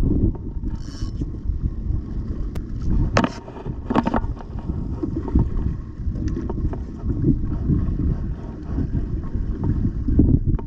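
Wind noise on the microphone over water sloshing against a kayak, a steady low rumble. Two brief sharp sounds come through about three and four seconds in.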